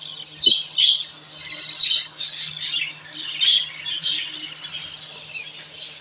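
Budgerigars chirping and squawking: a busy run of short, high calls following one another without a break.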